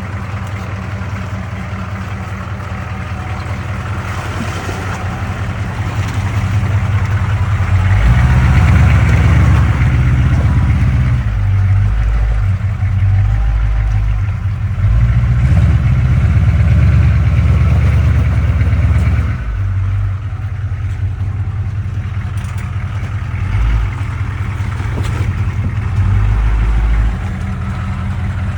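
Chevrolet K5 Blazer's 6.2-litre V8 diesel engine running off-road. It gets much louder from about a third of the way in until past the middle, eases back, then swells again briefly near the end.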